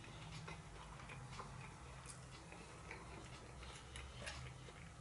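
Faint scattered clicks and light scrapes of a metal fork picking food out of a cardboard takeaway box.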